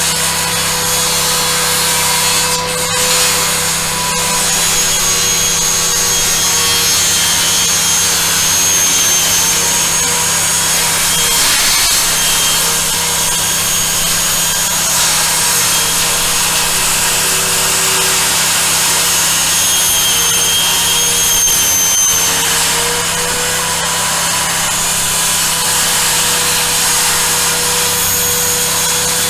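Homemade sawmill running and cutting wood, a loud, steady sound that holds unchanged throughout.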